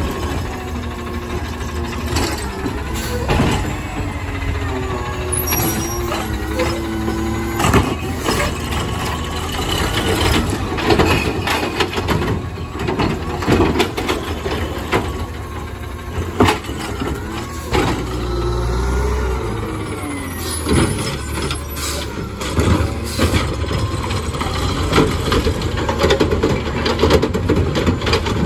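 Natural-gas Autocar garbage truck with a McNeilus ZR automated side-loader arm at work: the engine runs steadily while the arm's hydraulics whine, rising and falling in pitch as it grabs, lifts and dumps carts. Repeated sharp clunks and bangs come from the carts and the arm striking the hopper.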